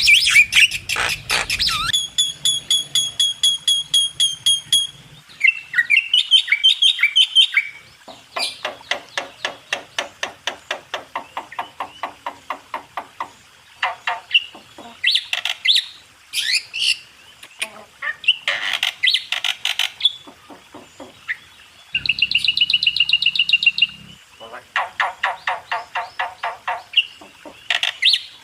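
Song and calls of pied starlings and Javan mynas: phrases of fast, repeated chattering notes mixed with squeaky whistles, broken by short pauses.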